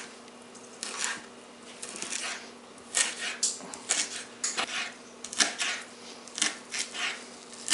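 Ceramic knife chopping nodding onions on a plastic cutting board: irregular sharp taps of the blade on the board, sometimes two or three in quick succession.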